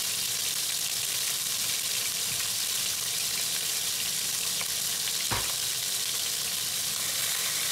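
Chunks of meat sizzling steadily as they sear and brown in hot fat in a pan, with a single sharp knock about five seconds in.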